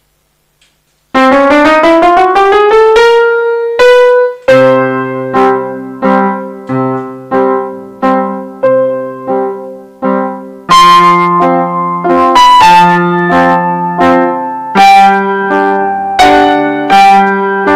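Digital piano played at sight: about a second in, a quick rising run of notes, then a waltz with bass notes and chords under a melody.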